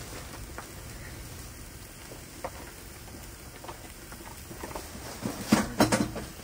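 Venison brats sizzling in a cast iron pan: a faint steady crackle with scattered small pops, and a few sharper clicks and knocks about five and a half seconds in.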